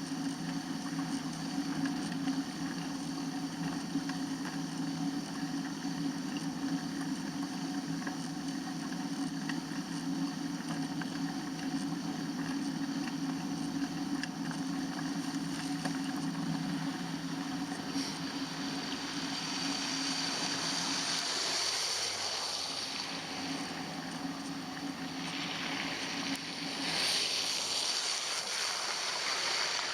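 Bicycle riding noise on snow-covered, wet roads: a steady rushing din from the tyres and wind on the moving camera. A hiss swells twice in the second half.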